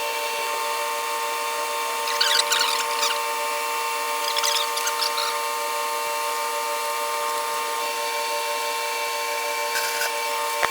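A steady hum made of a few constant tones, like a small motor running, with two brief scratchy scraping sounds about two and four and a half seconds in.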